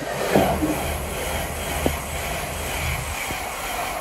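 LNER Azuma (Hitachi Class 800-series) high-speed train passing close at speed: a loud rush of air and wheel-on-rail noise with a deep rumble that drops away about three seconds in, and a few sharp clicks.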